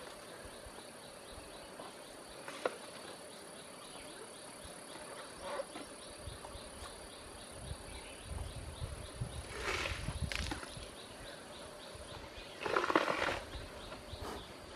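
Asian elephant crunching and tearing banana stems as it eats, in short noisy bursts in the second half, the loudest near the end. Insects buzz steadily behind it, with a fast regular ticking in the first half.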